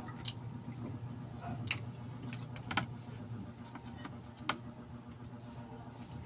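Eggshells and a metal spoon clicking and tapping as balut eggs are handled and one is lifted onto the spoon: a few sharp clicks, the loudest about three and four and a half seconds in, over a low steady hum.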